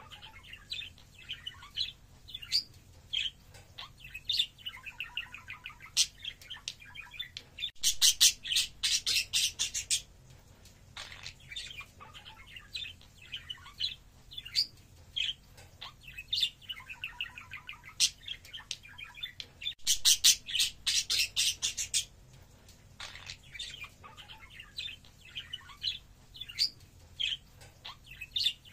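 Budgerigar warbling and chattering: a steady run of varied chirps and squeaks, broken twice by a loud burst of fast, rapid chirping about twelve seconds apart.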